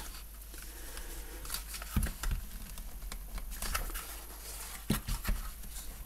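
Handling noise from a handcuff pouch's strap and popper flap: light rustling and scratching, with a soft knock about two seconds in and another near the end.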